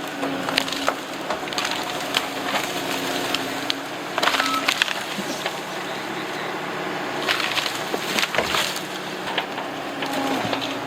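Case TR270 skid steer's diesel engine running steadily while the machine pushes through brush along a fence line, with repeated sharp cracking and snapping of wood, in clusters about four seconds in and again toward the end.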